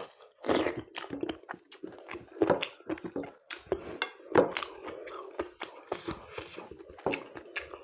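A person chewing and eating close to the microphone: a string of irregular mouth clicks of varying loudness, the loudest about four and a half seconds in.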